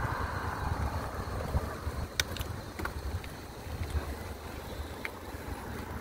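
Wind buffeting a phone's microphone while riding a bicycle slowly up a paved road, an uneven low rumble, with a few faint clicks about two to three seconds in and once more near the end.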